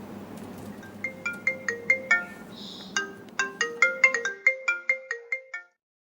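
Short melodic jingle of quick, bright, ringtone-like notes over a low steady hum, cutting off suddenly to silence near the end.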